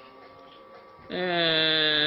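A man's voice drawing out a steady-pitched hesitation sound, a held "aaand", starting about a second in over faint room tone.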